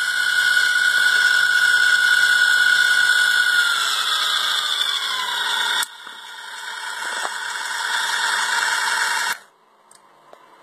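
Small DC motor running off a bench power supply with a high whine; the pitch sinks about four seconds in, the sound drops suddenly near six seconds, then rises steadily again before cutting off abruptly near the end.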